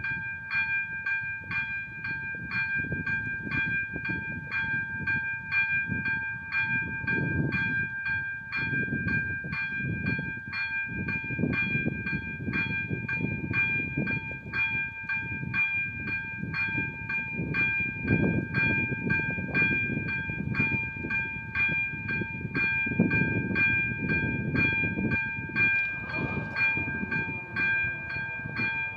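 Level crossing warning bell ringing in a fast, even rhythm of electronic dings, over a low rumble that swells and fades.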